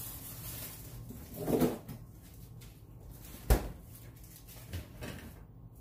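A sharp knock about three and a half seconds in, with a softer muffled sound a second and a half in and a small knock near the end, over a steady low hum in a small kitchen.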